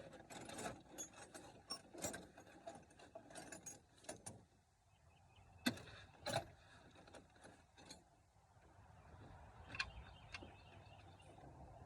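Faint, scattered clicks and metallic knocks of hand tools working the alternator bolts on a pickup truck, with two sharper knocks about halfway through.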